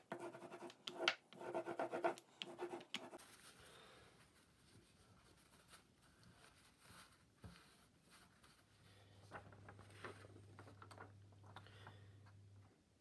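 Rubber ink brayer rolling back and forth over a masking-tape print plate, a tacky crackle of inked rubber on the plate, for about the first three seconds. Then quieter rubbing and rustling as the inked plate is handled and a sheet of paper is laid over it.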